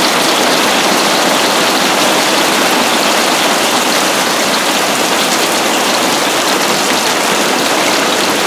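Hailstorm: dense hail pelting a roof and the ground, a loud steady clatter with no let-up.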